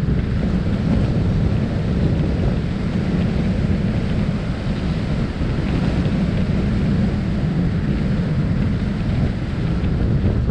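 Wind buffeting the microphone: a steady, low rushing noise with no other distinct sound.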